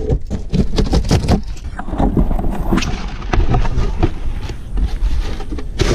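Cardboard shipping box being ripped open by hand: a quick run of sharp tearing cracks and thumps as the taped flaps give way, then the rustle and crinkle of plastic air-pillow packing being handled.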